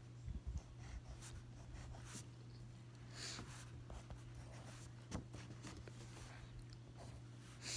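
Pen scratching on paper as someone writes and draws, in faint short strokes, with a few louder scratches about three seconds in and near the end. A steady low hum runs underneath.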